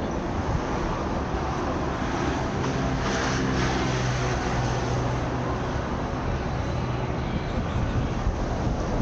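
Street traffic noise, with a road vehicle's engine hum swelling about three seconds in and fading a few seconds later.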